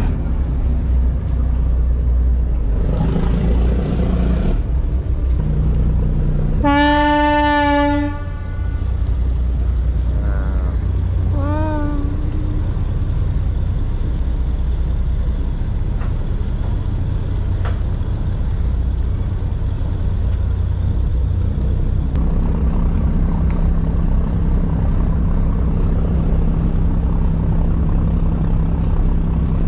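A passenger ferry's engines drone steadily under a long ship's horn blast about seven seconds in, followed by a shorter toot a few seconds later. About 22 seconds in, a steady hum joins the engine drone.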